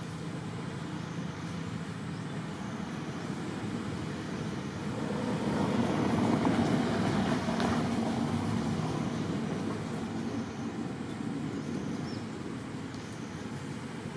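A motor vehicle passing: steady engine and road noise that grows louder to a peak about halfway through, then fades.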